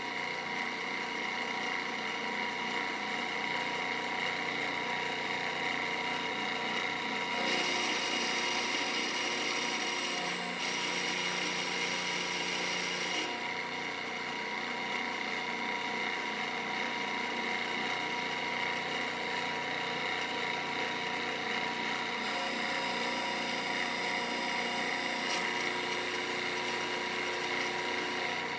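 A CNC router's spindle runs steadily as the end mill cuts a pocket in an aluminium block, a constant whine with many fixed tones. The high part of the sound changes a few times as the cut goes on.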